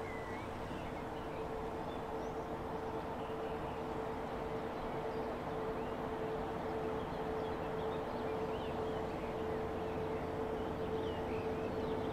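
An approaching electric locomotive hauling a freight train gives off a steady electric hum or whine with a low rumble under it, growing slowly louder as it nears.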